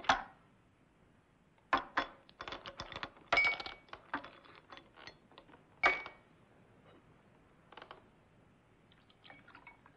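Glassware and ice cubes being handled as drinks are made: a scattered series of sharp clinks and clicks, two of them with a brief glassy ring.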